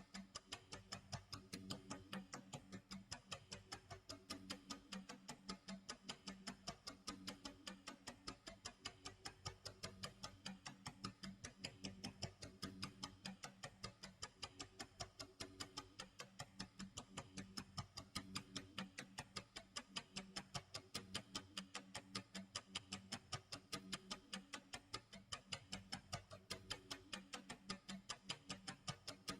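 Faint clock tick-tock sound effect: a steady, even run of quick ticks.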